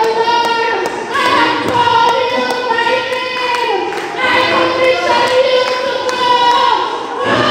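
Church congregation singing a worship song in long held notes, over a steady beat of sharp taps.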